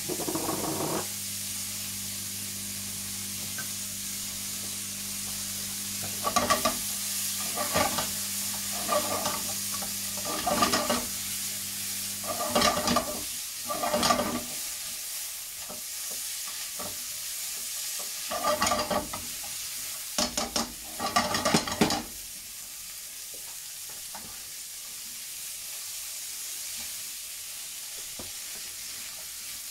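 Prawns, onions and just-added frozen peas sizzling steadily in a hot oiled frying pan. From about six seconds in to about twenty-two seconds in, a silicone spatula stirs and scrapes the pan in about a dozen strokes; after that the sizzle goes on alone, a little quieter.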